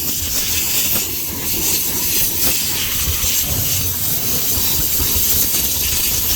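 Compressed-air blowgun blowing a steady, loud hiss of air, clearing dirt away from the fuel pump access on top of the fuel tank so that none falls into the tank.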